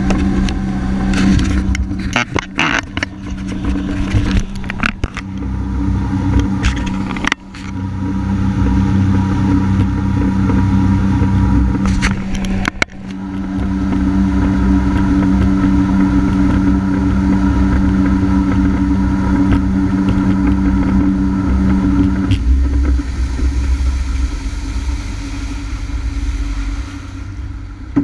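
Honda F-12X AquaTrax turbocharged four-stroke engine running at a steady high pitch with low rumbling hull and wind noise, briefly dipping twice, then the steady tone dropping away about 22 seconds in, leaving only a low rumble. The turbo has failed, so the ski makes only about 28 MPH at full throttle.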